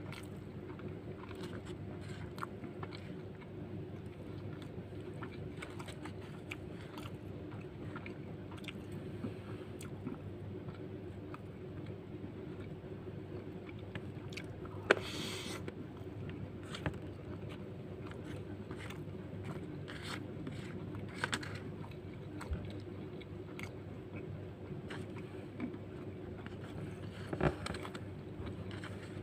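Close-up chewing and biting of nasi lemak with fried cow lung, with a spoon scraping and tapping against the paper and banana-leaf wrapping. Sharp clicks or bites stand out about halfway through and near the end, over a steady low hum.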